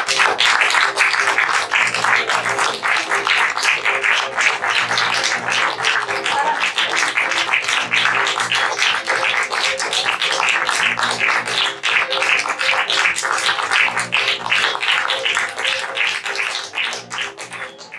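Audience applauding, a dense patter of many hands, over background music; the clapping thins out and fades near the end.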